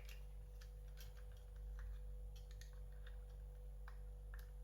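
Faint, irregular light clicks and taps of hard plastic: a Transformers Kingdom Huffer action figure being handled, its weapon and parts moved about.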